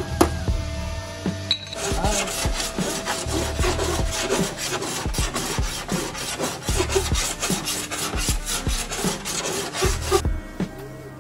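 A hand-held sanding block rubbed over a car's bare-metal front fender in quick, even back-and-forth strokes, stopping near the end; a couple of hammer taps on the panel right at the start.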